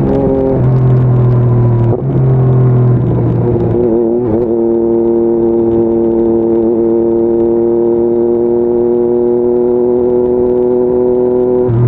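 2022 Yamaha MT-09 SP's 890 cc inline three-cylinder engine under way. Its note steps in pitch a few times in the first four seconds, as with gear changes, then holds one steady pitch as the bike cruises, with a brief change near the end.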